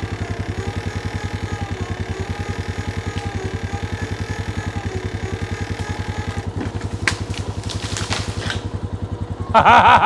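An ATV engine idles steadily with an even low pulse. A few sharp knocks and clinks come about two-thirds of the way in, and a loud, brief squeal falling in pitch comes near the end.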